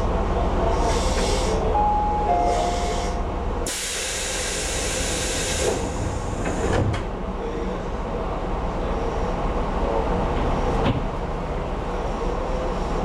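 Tobu 8000 series electric train standing at a platform: its on-board equipment hums steadily under a soft hiss that pulses about once a second. About four seconds in, compressed air hisses out loudly for some two seconds, followed by a single clunk and, a few seconds later, a sharp click.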